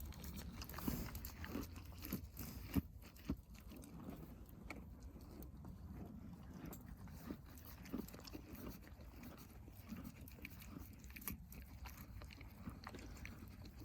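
A horse chewing grain taken from the hand, with faint crunches and small clicks at irregular intervals.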